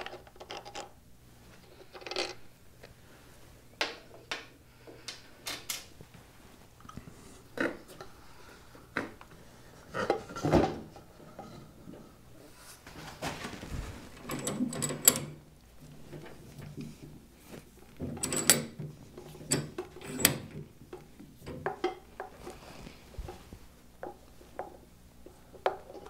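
Spanner work on the front fork leg of a 1972 Triumph Bonneville as the front wheel's axle fittings are undone: irregular metallic clicks, clinks and knocks, busiest about ten to fifteen seconds in and again around eighteen to twenty seconds.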